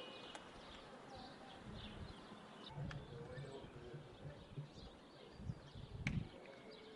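Faint outdoor ambience with small birds chirping now and then over a low murmur, and one sharp click about six seconds in.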